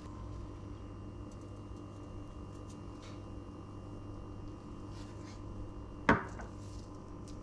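Quiet steady hum with a few faint ticks while cocoa powder is tipped into a stainless mesh sieve. About six seconds in, a single short clack, the loudest sound, as a small white ceramic bowl is set down on the kitchen countertop.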